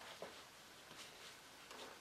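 Near silence, broken by a few faint, brief rustles and light taps of gloved hands handling the linen ticking fabric and a wooden strip.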